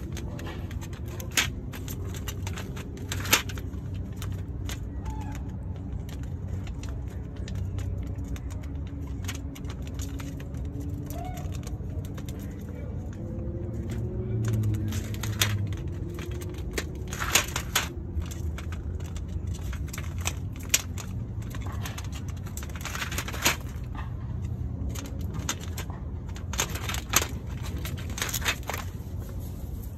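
A squirrel cracking and chewing in-shell peanuts: irregular crisp cracks and crunches, a few of them sharp and loud, over a low steady rumble in the background.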